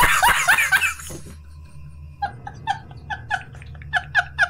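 A man laughing hard: rapid, loud bursts of laughter that die down about a second in, then start again about two seconds in as a run of short, high-pitched, squeaky laugh pulses, about four a second.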